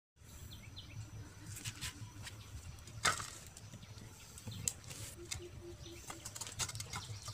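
A cardboard box being handled and set down on a cloth blanket: scattered knocks, taps and rustling, with one sharp knock about three seconds in. A short run of low, evenly spaced calls sounds a little after five seconds.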